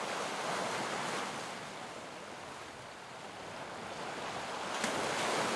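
Small waves washing over a pebble and rock shore, easing off in the middle and swelling again near the end.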